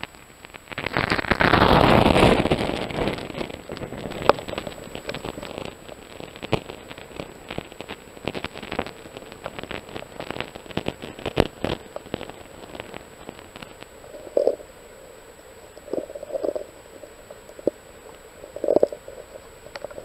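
Stream water heard through an underwater camera: a loud rush of water about a second in, then scattered crackling clicks and a few short bubbling blips near the end.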